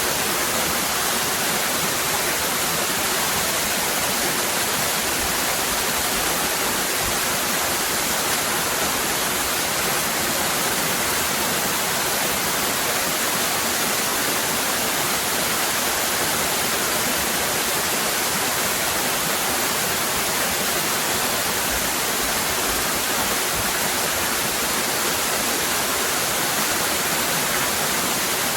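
Waterfall cascading: a steady, dense rush of falling water with no breaks or changes.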